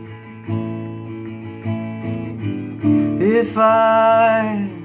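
Acoustic guitar strummed in a slow folk accompaniment, a few separate strokes. About three seconds in, a voice comes in on one long sung note that bends up at its start and is held almost to the end.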